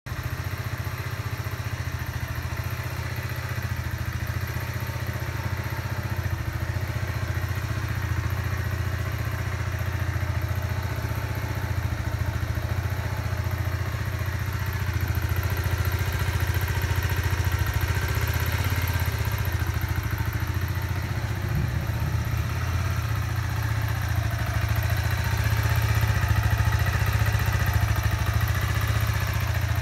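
Kawasaki Z125 Pro's 125 cc air-cooled single-cylinder four-stroke engine idling steadily while warm, with a ticking running through it. The owner, new to four-strokes, is unsure whether this tick is normal on a bike with just over 100 miles on it.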